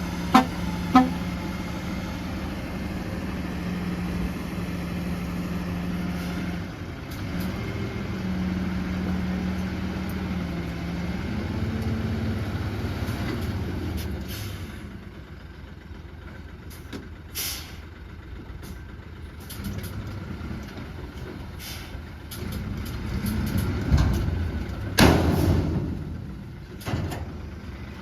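Heavy diesel engine of earthmoving machinery running steadily, its pitch shifting a few times before it fades about halfway through. Scattered knocks follow, with a loud thud near the end.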